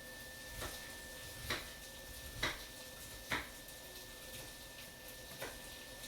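Tableware clinking at a dinner table: about five short, separate clicks over a few seconds, with a faint steady high-pitched whine underneath.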